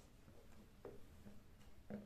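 Near silence: room tone, with two faint short knocks, one a little under a second in and one near the end.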